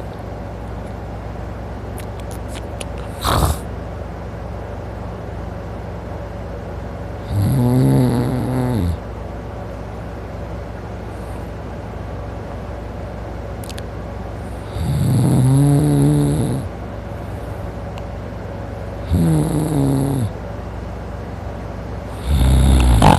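A man in deep sleep snoring loudly, four long rattling snores a few seconds apart, with a brief sharp sound about three seconds in.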